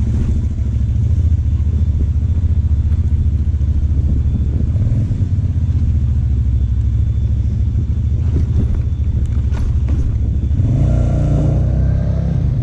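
Cruiser motorcycle's engine running at low speed as it is ridden, a steady low rumble. Near the end a second, higher engine note rises and falls over it.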